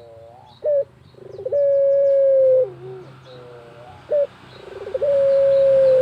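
Barbary dove (puter) cooing in its full call twice: a short note, then a rolling note running into a long held coo that drops in pitch at the end. Faint chirps of small birds sound behind it.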